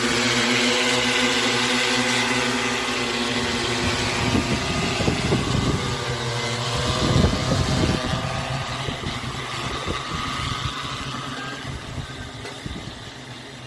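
Multirotor agricultural spraying drone running its rotors at full power, a steady hum with the strong downwash buffeting the microphone in gusts. The sound fades over the last few seconds as the drone moves away.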